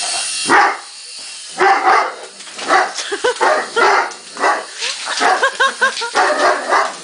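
A Doberman barking and yipping at a toy RC helicopter in many quick, repeated calls with bending, whine-like pitch. The helicopter's high electric motor whine is heard at the start and stops about half a second in.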